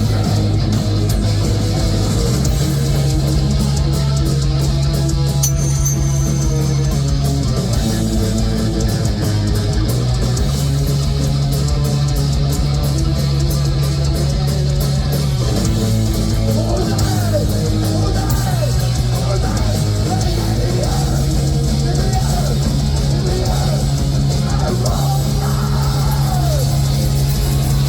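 Heavy metal band playing live at full volume: distorted electric guitars over bass and drum kit, the bass notes changing every few seconds. In the second half, notes that bend up and down ride over the top.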